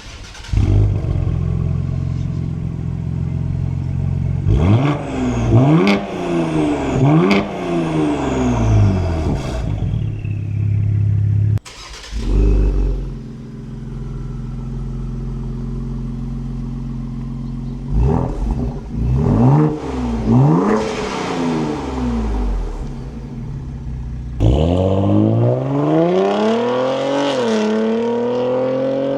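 Ford Explorer ST twin-turbo V6 through an aftermarket 3-inch cat-back exhaust, idling and then blipped in quick free revs, in two separate bursts. Near the end it pulls away under acceleration, its pitch climbing with a brief dip at a gear change.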